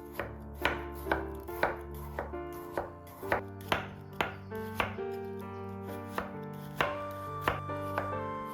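Sharp chopping knocks, about two a second and slightly uneven, over background piano music.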